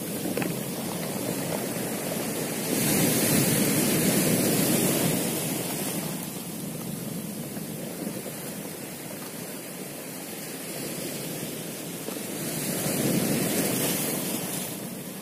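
Sea surf washing onto a pebble shore, swelling louder twice and easing off between.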